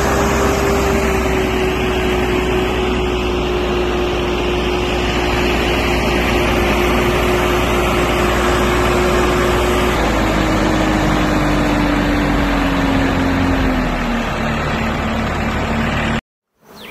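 A motor running steadily under a loud rushing noise, its hum sinking slowly in pitch after about ten seconds, then stopping abruptly near the end.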